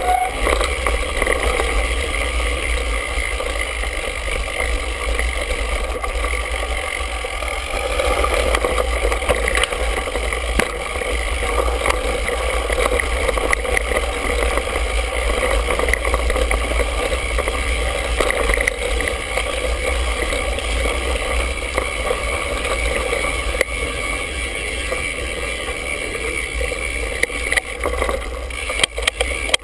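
Mountain bike riding over a dirt singletrack, heard through a handlebar-mounted GoPro: a steady wind rumble with the rattle and hiss of tyres and frame on the trail, and a few sharp knocks from bumps near the end.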